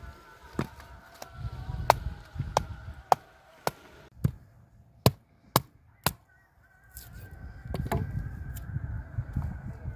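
A series of sharp chopping strikes, roughly two a second, with a low rumble in between.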